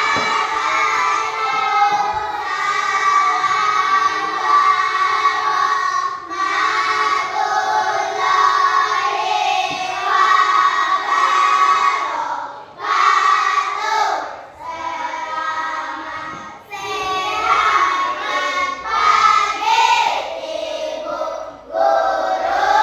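A group of children singing together in long, held phrases, with short pauses between the lines.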